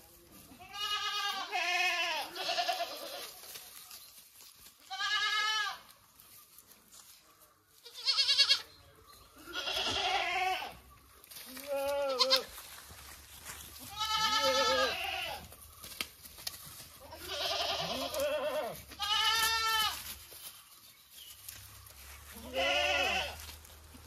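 Goats bleating, about ten separate calls of differing pitch, each under a second long and wavering in pitch, with short pauses between them.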